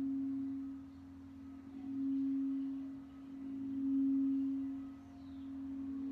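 Crystal singing bowl sung by circling its rim with a wand: one steady low tone that swells and fades about every two seconds.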